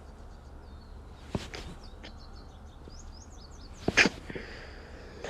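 A woman sneezes once, sharply and loudly, about four seconds in, with a smaller sharp sound a little over a second in. Faint high chirps sound in the background.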